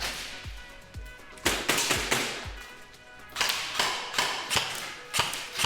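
Music with a steady thumping beat, about two beats a second, with two stretches of sharp, bright hits over it.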